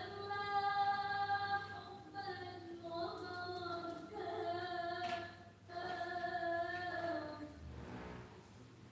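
A high voice singing unaccompanied in long held notes, about four phrases, stopping near the end.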